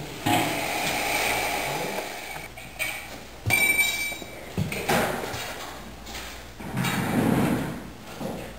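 Woven fabric innerduct and its flat pull tape rustling and scraping as they are handled and knotted, with a few sharp clicks and a short ringing ping about three and a half seconds in.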